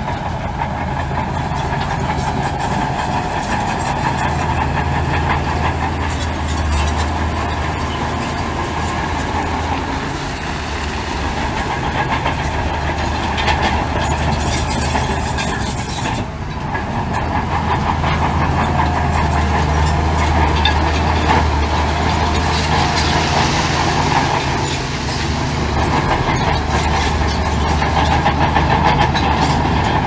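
Crawler bulldozer's diesel engine running steadily under load, with a continuous metallic clatter from its tracks.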